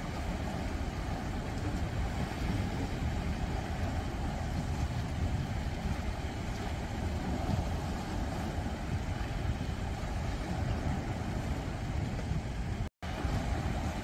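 Sea waves washing in over breakwater rocks and tetrapods: a steady rush of surf with a deep low rumble. The sound cuts out for an instant near the end.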